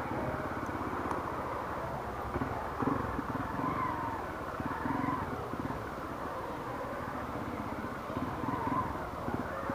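Motorcycle engine running at low revs with a steady low putter as the bike rolls slowly, with faint street sounds behind it.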